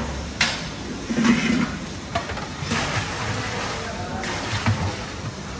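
Kitchen clatter from steel utensils: a sharp metal clank about half a second in, then bursts of hissing, splashy noise over a steady low hum as a steel bucket of liquid is handled beside a large cooking pot.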